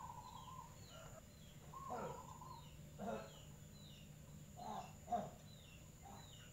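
Faint birdsong outdoors: a bird repeats short high falling chirps about twice a second, and a held mid-pitched call sounds at the start and again about two seconds in. A few short louder sounds come around three and five seconds in.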